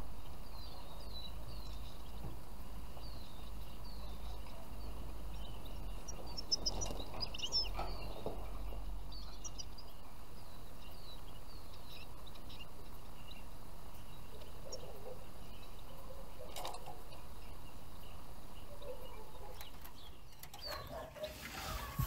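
Small songbirds giving short, falling chirps every second or so, with a busier flurry of calls about seven seconds in, over a steady low rumble.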